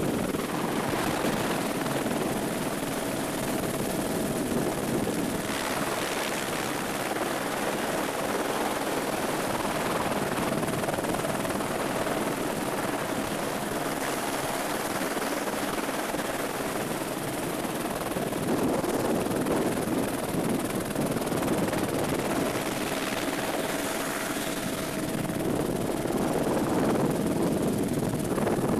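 Helicopter in flight, heard from inside the cabin: a dense, even rush of rotor and engine noise with a faint steady whine.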